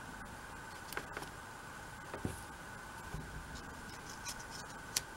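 Faint handling sounds of small die-cut paper pieces being arranged on a card: a few light ticks and paper taps, the sharpest near the end, over a faint steady hum.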